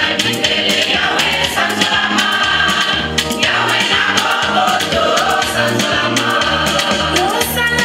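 Several women singing together into microphones over amplified band music, with a repeating bass line and steady rattling percussion.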